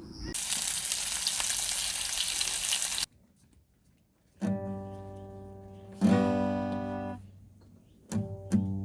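Food sizzling in a hot pan for about three seconds, cut off abruptly. After a moment of silence, an acoustic guitar is strummed: two chords left to ring, then more plucked notes starting near the end.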